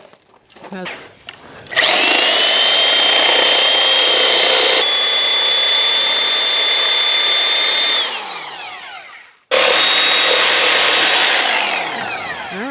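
Reciprocating saw (Sawzall) cutting out a wooden board in two runs. Its motor whines steadily at full speed for about six seconds and winds down. It starts again about a second and a half later, then winds down near the end.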